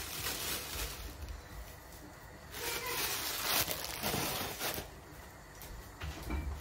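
A plastic packet of dried herbs rustling and crinkling as the herbs are shaken out into a bowl, in two spells: briefly at the start and again for about two seconds in the middle.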